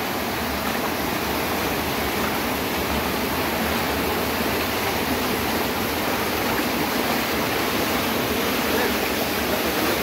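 Rainwater flooding across paved ground and grass in heavy rain, a steady, even rushing of moving water.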